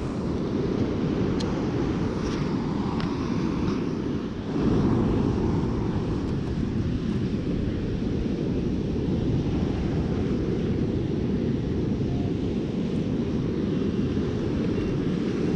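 Wind buffeting the microphone, a steady low rumble, mixed with breaking surf washing up the beach; it gets a little louder about four and a half seconds in.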